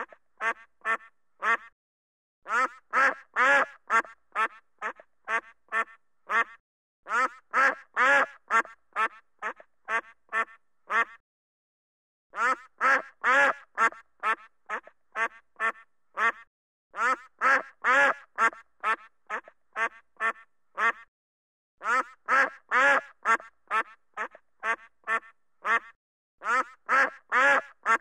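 Duck quacking in repeated runs of about a dozen quacks each, roughly three a second; each run starts loud and fades away, then a short pause and the next run begins.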